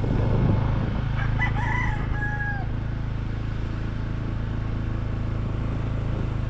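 A rooster crowing once, about a second and a half in, over the steady low hum of a vehicle engine running.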